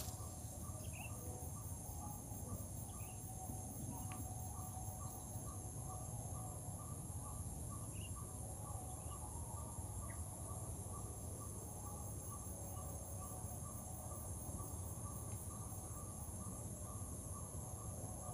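Insects in marsh grass, crickets or similar, making a steady high-pitched drone, with a fainter regular ticking call and a low background rumble.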